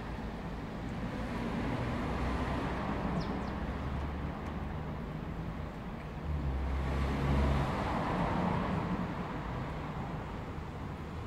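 Road traffic noise with a low engine rumble that swells twice, once about two seconds in and again around seven seconds, as vehicles pass.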